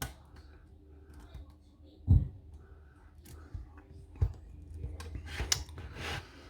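A short hook and pry-bar tension tool working in a pin-tumbler lock: light metal clicks and scrapes, with dull knocks from handling the lock about two and four seconds in.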